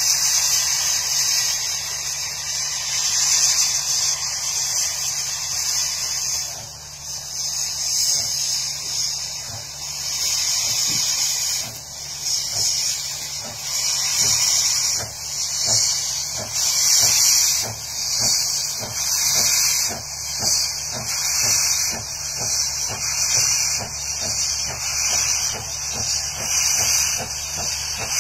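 Steam locomotive working a train: a steady hiss that pulses about once a second, with a regular exhaust beat of several chuffs a second that grows clearer from about halfway.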